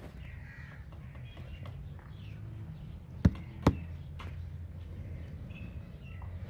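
Two sharp knocks about half a second apart, knuckles rapping a cement roof tile, over a steady low hum with faint bird calls.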